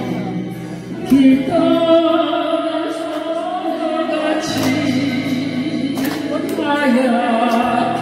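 A woman singing a Korean ballad into a handheld microphone over a karaoke backing track, with a new sung phrase coming in loudly about a second in.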